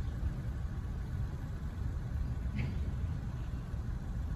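Double-stack intermodal freight cars rolling slowly past, a steady low rumble.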